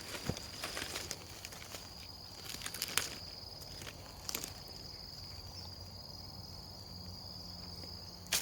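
An insect calling steadily at one high pitch, with scattered sharp clicks and rustles, the loudest about three seconds in and near the end.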